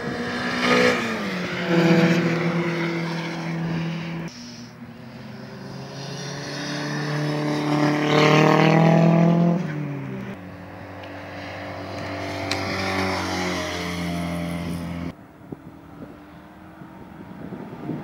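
Track-day cars passing on a race circuit, their engines loud and changing pitch as they go by; the two loudest passes come about two seconds in and around eight to nine seconds in. The sound drops suddenly about four seconds in and again near the end.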